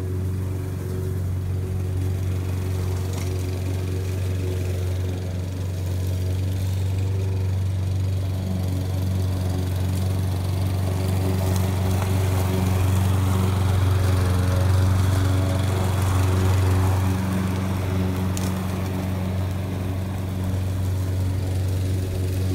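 Walk-behind gasoline lawn mower running steadily while cutting grass. It grows louder from about halfway through as it passes close by, then eases off again.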